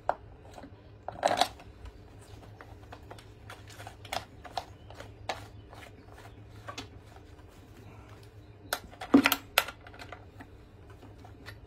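Scattered clicks and rattles of a chainsaw's chain cover being seated on the bar and its captive bar nuts threaded on by gloved hands, with a louder clatter about a second in and two sharp clacks about nine seconds in.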